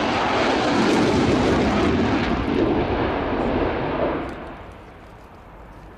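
Dassault Rafale C fighter jet passing in a hard banking turn, its twin Snecma M88 turbofans running loud in afterburner. About four seconds in the noise drops away sharply and fades.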